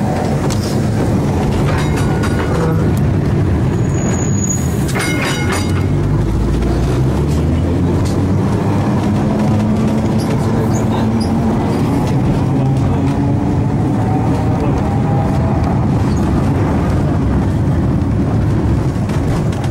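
A heritage electric tram with its original trucks and electrical equipment, heard from the driver's platform as it runs along street track. There is a steady rumble of wheels on rail, with a motor tone that rises and falls with speed. A few sharp clicks come about two seconds in and again about five seconds in.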